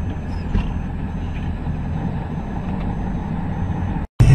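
Steady low rumble of engine and road noise inside a moving vehicle's cab, with a faint high-pitched beep repeating about every two-thirds of a second. Near the end the sound cuts out for a moment, then jumps to a much louder recording.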